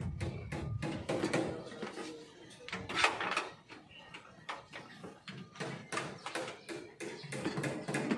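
Irregular knocks and clicks from an aluminium sliding-window frame being handled and fitted into its opening, with one louder knock about three seconds in.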